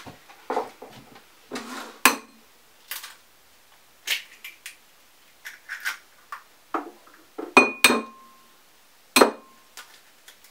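Eggs knocked against the rim of a ceramic bowl to crack them open: a series of separate knocks and clinks, the sharpest of which ring briefly, about two seconds in and then three times near the end. The shell is hard and takes several knocks.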